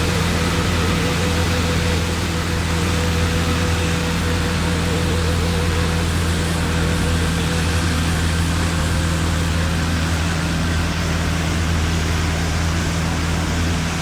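A steady low engine hum under a constant hiss of noise, with no change in level.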